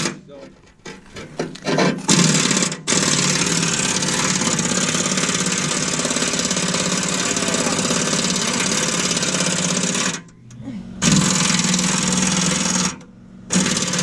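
Power impact wrench hammering in bursts: one long run of about eight seconds, then two shorter runs with brief stops between. It is driving the bolts that hold a new cutting edge onto a steel snowplow blade.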